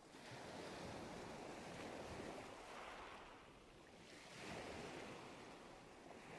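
Faint, steady hiss of room noise that swells and eases slowly a couple of times, with no distinct events.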